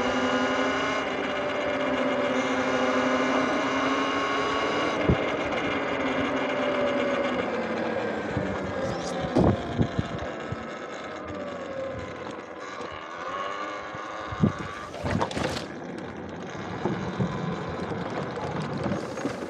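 Electric dirt bike's motor whine, several tones stacked together, holding steady for about five seconds and then slowly falling in pitch as the bike slows. A few sharp knocks come along the way.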